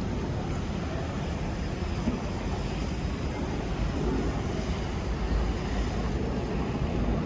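Steady low engine rumble from vehicles, with a faint even hiss above it.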